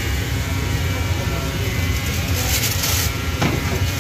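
Steady low rumble of a busy restaurant kitchen, with a brief hiss about two and a half seconds in.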